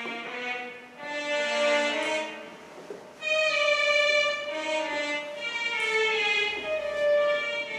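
Violin music: slow, long-held notes, some of them bending in pitch.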